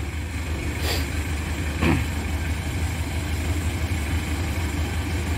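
An engine idling with a steady low hum, and a light click about a second in.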